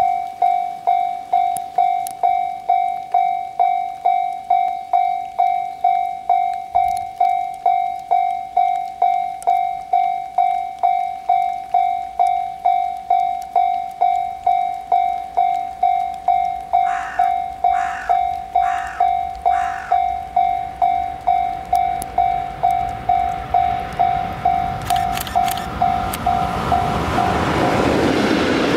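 Japanese level-crossing warning bell ringing in even, single-pitched strikes, a little under two a second. Around 17 seconds in four short, higher tones sound, and from about 24 seconds the rumble of the approaching freight train, an EF81 electric locomotive with container wagons, rises and swamps the bell.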